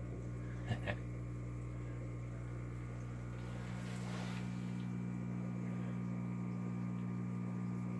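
Steady low electrical hum from running aquarium equipment, with two light clicks about a second in.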